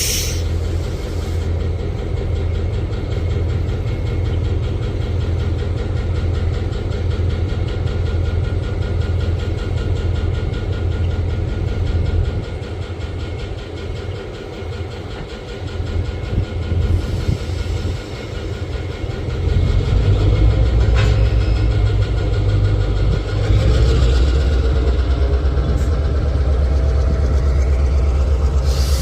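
Diesel locomotive engine running steadily with a low rumble, easing off a little around the middle, then working harder and louder from about two-thirds of the way in while switching cars.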